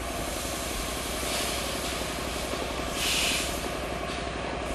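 Model horizontal steam engine running steadily, its flyball governor spinning, with a short burst of hiss about three seconds in and a fainter one a second or so earlier.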